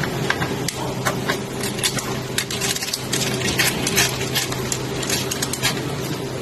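Quick, irregular metal clicks and scrapes of a small cable plug being pushed onto and screwed down on a threaded socket, over a steady low hum.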